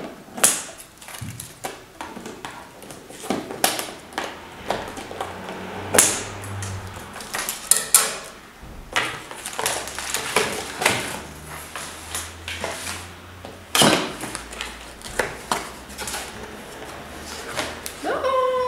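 A cardboard camera box being unboxed by hand: the seal tape cut and pulled off, the box turned over and its flaps opened, giving irregular taps, scrapes, rustles and knocks.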